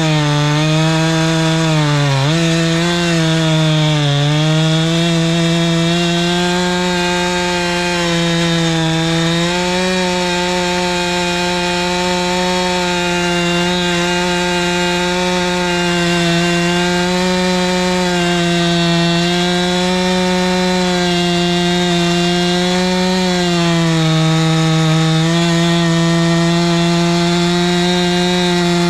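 Husqvarna 390XP two-stroke chainsaw with a 3-foot bar running at high revs while cutting through a thick willow trunk. Its pitch sags briefly twice in the first few seconds as it loads up, then holds steady through the cut.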